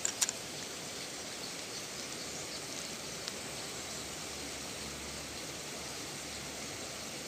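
Steady, even hiss of outdoor background noise. Two sharp clicks come right at the start and a faint tick about three seconds in.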